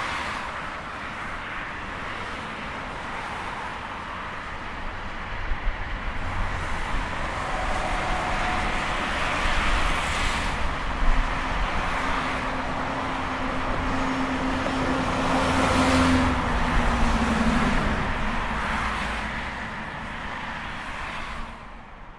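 Busy highway traffic: a steady rush of tyres and engines, swelling as vehicles pass close about ten and sixteen seconds in, with one vehicle's engine hum rising slightly in pitch as it goes by. The traffic fades out at the end.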